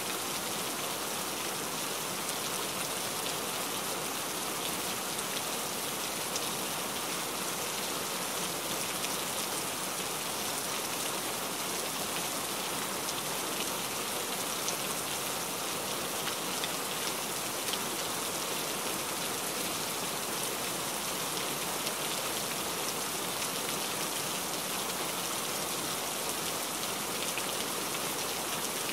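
A steady, even rushing noise like rain on a surface, with fine specks of patter and no pitched sound, unchanging throughout.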